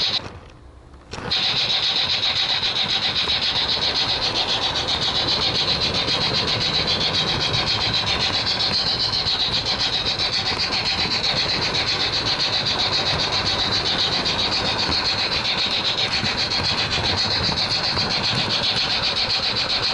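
Märklin model train rolling along its track, heard from a wagon it is pulling: a steady close-up rattle of wheels on rails with a high whir. The sound cuts out briefly near the start, then runs on evenly.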